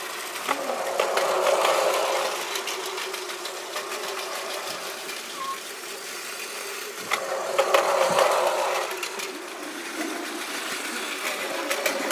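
Battery-powered toy train's small electric motor whirring steadily as it runs on plastic track, with many small clicks from the running gear; it grows louder twice, about a second in and again past the middle, as the train passes close by.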